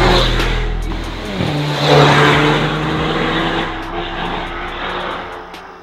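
Mercedes-Benz GLB 250's turbocharged 2.0-litre four-cylinder engine through a de-cat turbo-back valved exhaust, the car driving away after passing. The engine note drops about one and a half seconds in, swells, then fades near the end.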